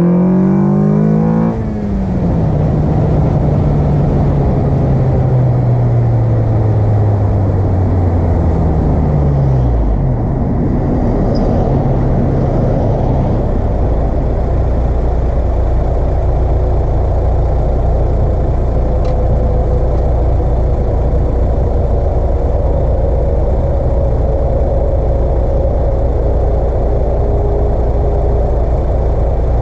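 Car engine breathing through an aftermarket Acuity cold air intake, revving up hard with rising pitch. Its note breaks off about two seconds in and then falls steadily over several seconds as the car slows. From about halfway through it settles into a steady low drone.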